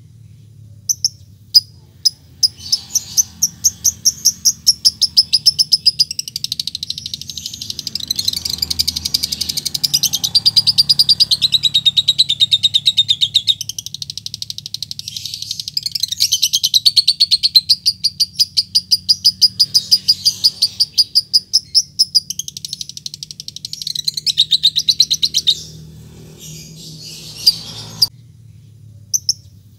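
Fischer's lovebird giving a few sharp single tick notes, then a long fast chattering trill (the 'ngekek') with a short break about halfway, ending in scattered notes near the end. This ticking-into-chatter call is used as a lure to set other lovebirds calling.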